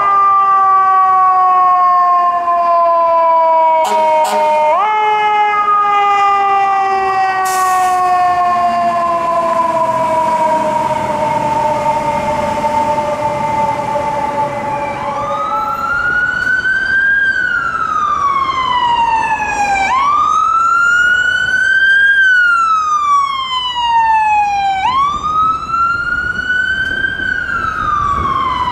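Emergency vehicle sirens: first a siren winding down in a long, slowly falling tone that briefly rises again about five seconds in and fades away, then a siren wailing up and down, one slow rise and fall about every five seconds.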